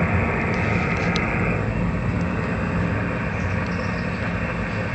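Amateur radio transceiver's speaker giving a steady hiss of band noise (static) on an open frequency, with no station answering the CQ call.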